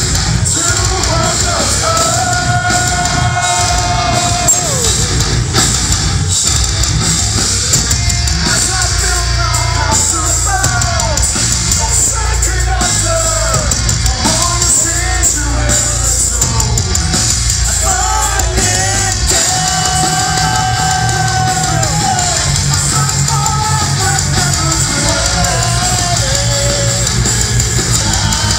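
Live metal band playing loud in a hall, with a dense, heavy low end under a singer who holds long, wavering notes.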